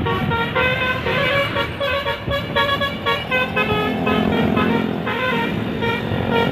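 Indonesian bus 'telolet' horn, a multi-tone horn, plays a quick tune of short, changing notes for about three seconds. A lower, steady drone then takes over.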